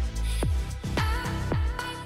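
Background music with a steady electronic beat, about two thumps a second, and a short melodic line over it about halfway through.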